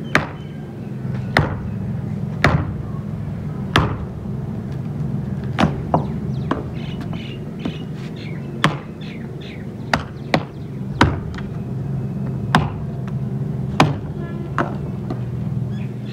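A small hand axe chopping a squared length of timber into firewood: about a dozen sharp chops, each a second or so apart and some in quick pairs, over a steady low hum.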